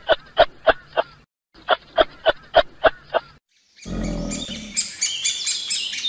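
Animal calls: two runs of about seven quick, evenly spaced calls with a short pause between them. From about four seconds in, they give way to a different high, shrill chirping.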